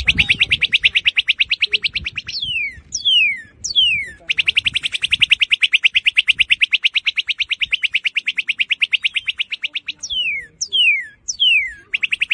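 Northern cardinal singing: sharp downslurred whistles and long, fast trills of evenly repeated notes. A trill ends about two seconds in, a longer one runs from about four to ten seconds, and single downslurs come in between.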